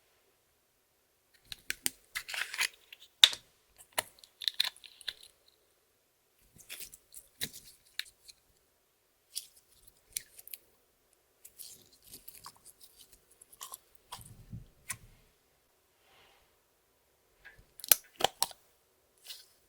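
Clear slime being squished and worked by hand, giving off sticky crackling pops and clicks in irregular clusters with short quiet gaps between them; the busiest bursts come in the first few seconds and again near the end.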